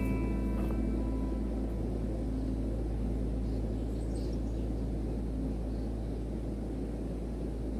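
Steady low outdoor rumble and hiss, the kind wind or a distant river makes on the microphone, with the last held notes of background music fading away in the first second.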